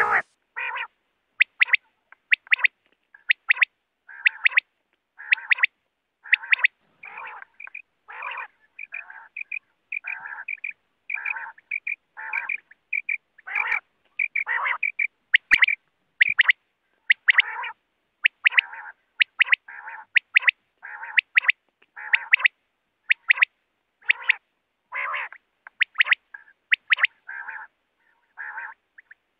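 Common quail calling over and over: short, raspy calls, a bit more than one a second, with silent gaps between them. A single sharp click about halfway through.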